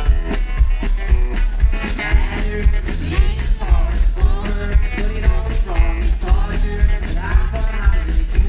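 Live rock song: a male voice singing over strummed electric guitar, with a steady driving beat and strong bass.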